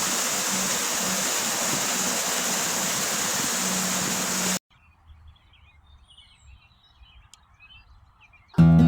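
Steady rush of flowing water that cuts off abruptly about four and a half seconds in, leaving near quiet with a few faint high chirps. Acoustic guitar music comes in right at the end.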